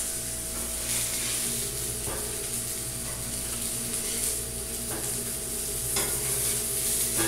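Floured fish steaks and fillets frying in lard on a flat griddle, a steady sizzle throughout. A few short taps and scrapes of a metal spatula against the griddle as pieces are turned.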